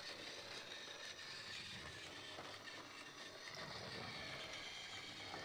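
Battery-powered Thomas & Friends Stepney toy engine running along plastic track, with a faint, steady whir from its small motor and wheels.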